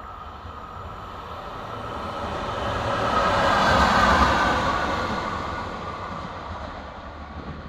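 A VR Class Sr1 electric locomotive running alone past at speed, growing louder to its peak about four seconds in as it goes by, then fading away. A steady whine runs under the passing noise.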